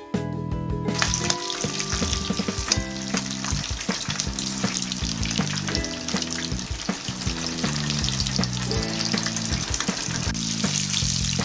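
Hot oil sizzling and bubbling hard around starch-coated small yellow croaker deep-frying in a pan, starting about a second in, with background music underneath.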